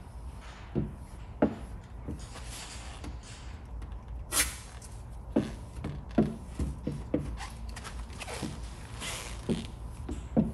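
A squeegee scraping and rubbing over the paper-masked vinyl graphic on the fender, in short strokes, with scattered soft knocks and a sharp click about four seconds in.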